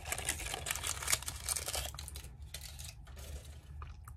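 Close-miked chewing of a crunchy dark chocolate with a fig filling: a dense run of moist crackles and clicks for about the first two seconds, thinning to scattered clicks after.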